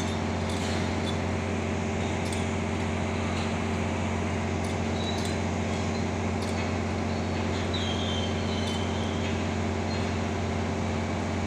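Steady hum of rail-handling plant machinery with a low drone, a few faint metallic clicks, and a brief high squeal about eight seconds in.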